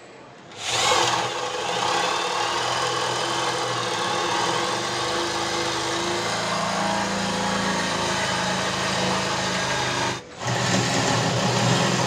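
Electric hand drill with a long bit boring holes into the edge of a wooden door for the lock body. It starts about half a second in and runs steadily, its pitch shifting about halfway through, stops for a moment near the end, then starts again.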